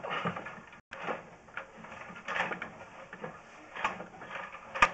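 Sewer inspection camera's push cable being fed by hand down the line: irregular scraping and clattering strokes with a sharp click near the end.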